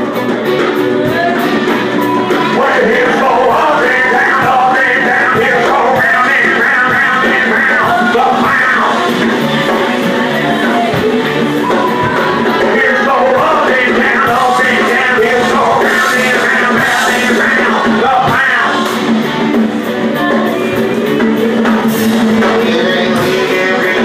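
Rock band playing with a singer over guitar and drums.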